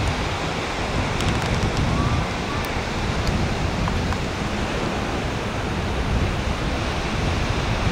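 Wind buffeting the camera's microphone: a steady rushing noise with an uneven low rumble.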